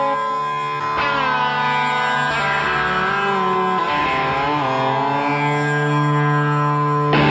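Background music: a plucked-string melody with bending notes over a steady low drone. A louder, fuller section comes in just before the end.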